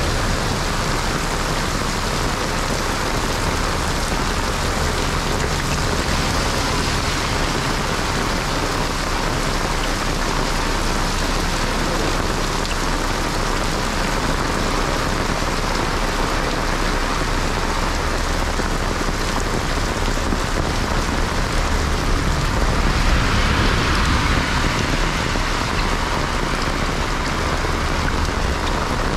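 Heavy monsoon rain pouring steadily onto a wet, flooded street, a constant dense hiss. It grows louder for a few seconds about three-quarters of the way through, then settles back.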